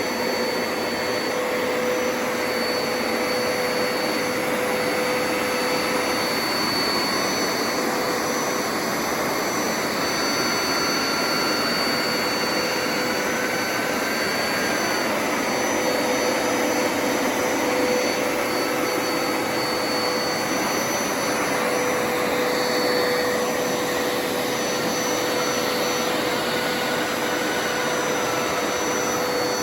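Hoover Power Scrub Deluxe upright carpet cleaner running steadily: a continuous rushing suction noise with a steady whine through it.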